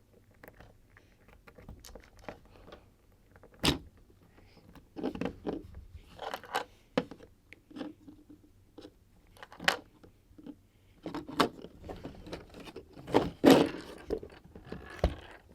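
LEGO parts being handled and pressed together: scattered small plastic clicks and scraping, with a few sharper snaps, as LEGO rims are forced into their rubber tyres.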